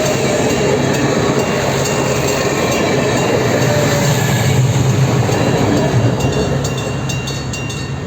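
A train running past: a steady rumble of wheels and running gear with a low engine hum, and a quick series of wheel clicks over rail joints in the last two seconds or so.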